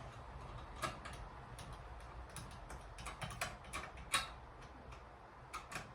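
Irregular light clicks and taps of small hardware and parts being handled during a ceiling fan installation, the sharpest about a second in and about four seconds in, over a steady low hum.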